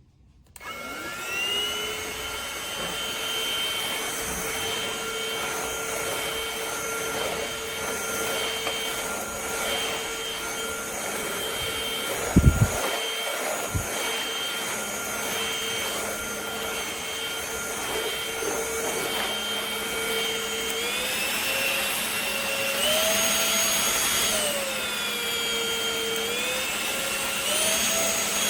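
Trucozie cordless stick vacuum's motor spinning up with a rising whine in the first second, then running steadily. A brief knock comes about halfway through. Near the end the motor pitch steps up, then dips and climbs again several times.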